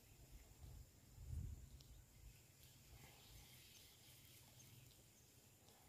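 Near silence: faint rural outdoor ambience with a low rumble and one soft, dull thump about a second and a half in.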